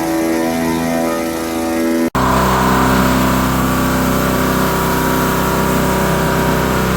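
A pressure washer's engine running steadily. It cuts out abruptly for an instant about two seconds in, then carries on louder.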